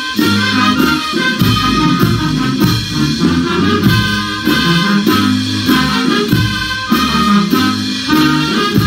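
Andean folk dance music: guitars strum a steady beat about twice a second under a sustained melody line.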